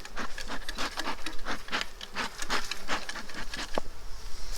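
Bee smoker's bellows pumped in a quick run of puffs, several a second, to calm the bees.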